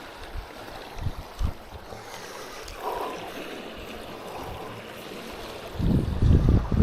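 Steady wash of waves on the shore with wind buffeting the microphone, the gusts strongest near the end.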